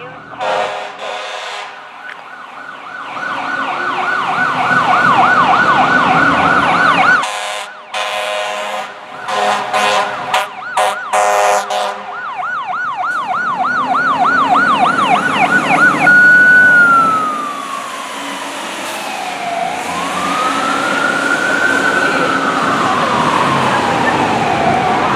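Fire truck siren and horn of Vancouver's Quint 6, a 1999 Spartan Gladiator ladder truck, responding with lights and sirens. The siren cycles in a fast yelp, broken by one long horn blast near the start and a run of short horn blasts in the middle. About two-thirds of the way through it changes to a slow rising and falling wail.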